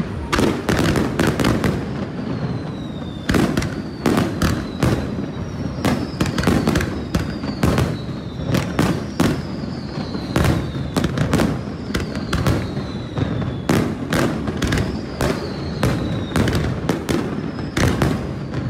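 Fireworks display: a rapid, continuous run of bangs and crackles, with a dozen or so high whistles that each fall in pitch.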